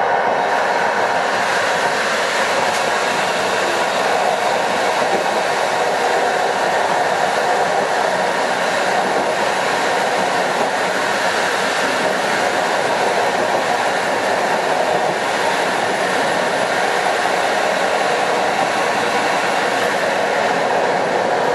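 A passenger train running over the rails, heard from inside the rear end of its last coach: a steady rushing rolling noise with no distinct clicking rhythm.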